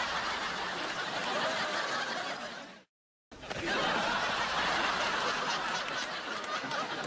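Continuous laughter that cuts off abruptly about three seconds in and resumes half a second later.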